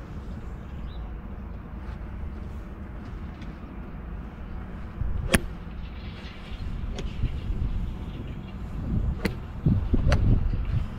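Wind rumbling on the microphone, broken by four sharp clicks at about five, seven, nine and ten seconds in, the first the loudest.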